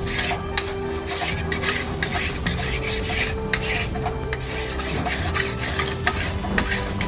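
Machete blade being sharpened with a hand file: repeated scraping strokes of metal on metal, about two a second.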